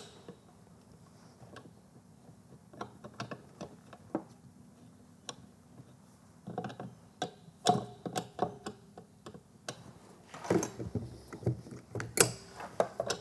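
Steel spanner and multi-grips working a stuck, WD-40-soaked nut on an electric motor's flywheel shaft: scattered metallic clicks and knocks as the spanner is repositioned and turned, more frequent in the second half.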